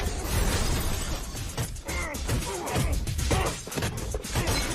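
Action-film soundtrack: music with a run of sharp crashing and smashing impacts.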